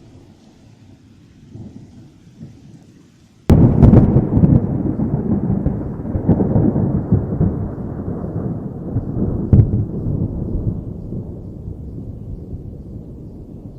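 Thunder: a low, faint rumble, then about three and a half seconds in a sudden sharp crack, the mark of a nearby lightning strike, followed by a loud rolling rumble that slowly fades. A second crackle sounds about ten seconds in.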